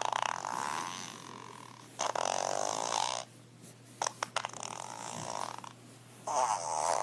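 Fart sound effects from a soundboard, played one after another: several fluttering blasts, each one to two seconds long, with a few sharp clicks between them.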